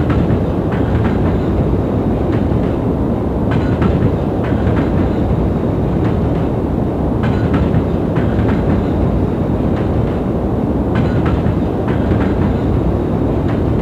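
Steady, deep rumbling noise played as a baby-soothing sound, with faint clicks that come back in small clusters every few seconds.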